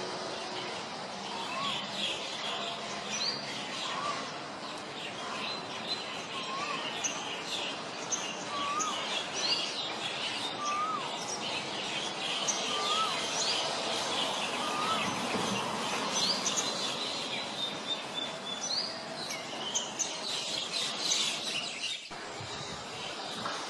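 Wild birds singing together, sogon among them. A short whistled note with a quick up-and-down turn repeats about every two seconds through the first two-thirds, over a busy chatter of high chirps and whistles.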